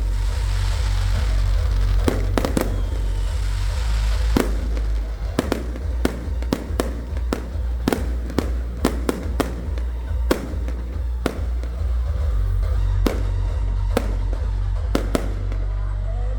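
Fireworks going off: many sharp bangs at uneven intervals, sparse at first and coming more often from about a third of the way in, over loud music with heavy bass.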